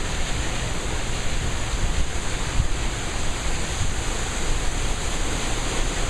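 Strong thunderstorm wind gusting with driven rain, a steady rush of noise, with the wind buffeting the microphone in uneven low rumbles.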